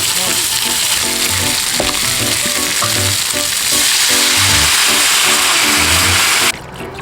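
Food sizzling loudly as it cooks over high heat, a dense steady crackling hiss that cuts off abruptly about six and a half seconds in. Background music plays under it.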